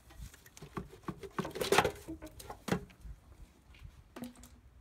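Aftermarket aluminium intake tube and its silicone coupler being worked loose and pulled off the throttle body: rubbing, clicks and knocks of the tube against parts of the engine bay, loudest just under two seconds in.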